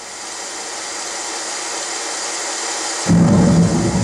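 Lowrey Prestige organ's built-in storm sound effect: a steady rain hiss fades in, then a loud, low thunder rumble breaks in about three seconds in.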